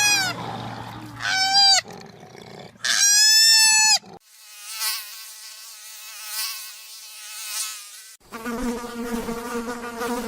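Three loud, high squealing animal calls, each rising and falling, the last one longest. Then, from about four seconds in, flying insects buzz: first a thin, wavering buzz that stops about eight seconds in, then at once a steadier, lower buzz.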